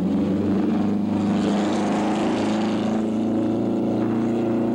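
Indy race car engine running steadily as the car pulls away down pit lane, a continuous drone.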